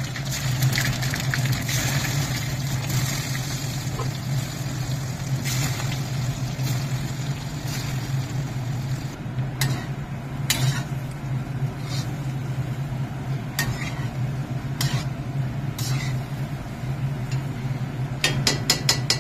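Pieces of steamed patrode sizzling as they fry in hot oil with cumin seeds in an iron kadhai, with a steel spatula knocking and scraping against the pan from about halfway on and a quick run of clinks near the end. A steady low hum runs underneath.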